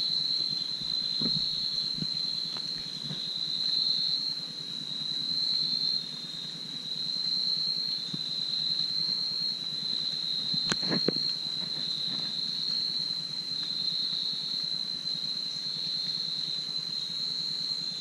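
Steady, high-pitched chirring of a night-insect chorus, most likely crickets, going on without a break. A few faint snaps and knocks come through it, the sharpest about eleven seconds in.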